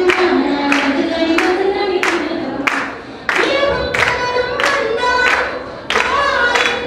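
A woman singing long held notes into a microphone, with a clapped beat keeping time about every two-thirds of a second. The phrase breaks off about three seconds in and again near the end, with a new phrase starting each time.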